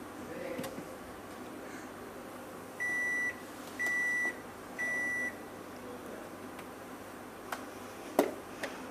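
Refrigerator door-open alarm beeping three times, a steady high tone about half a second long each, about a second apart, the sign that the fridge door has been held open too long. A few knocks follow near the end, the loudest a sharp thump.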